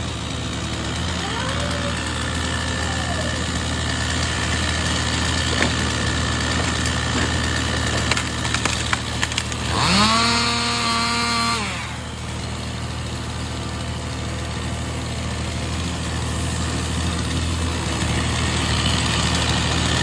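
A grapple truck's engine running steadily while its grapple grabs and crushes brush, with branches cracking and snapping about eight to ten seconds in. About ten seconds in an engine revs up, holds for about two seconds, then drops back.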